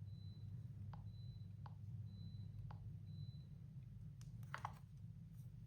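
Faint clicks and light taps over a low steady hum, with a faint short high beep repeating about once a second.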